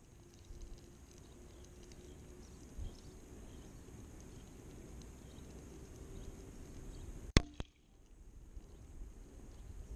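One shot from an FX Dreamline Compact .177 sub-12 ft·lb air rifle, heard at the target as a single sharp crack of the pellet striking about seven seconds in, with a fainter click just after. Faint wind noise otherwise.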